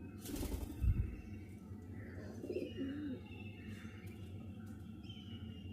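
Birds calling faintly with thin chirps, after a brief rustle and knock about a second in.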